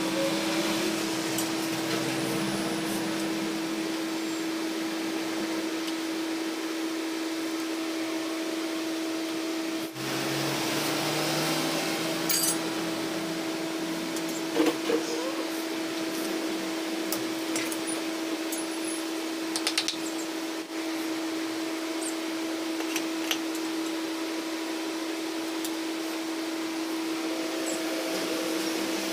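Steady whirring machine hum holding one pitch, with a few light metal clinks and taps from engine parts and a screwdriver being handled, mostly around the middle.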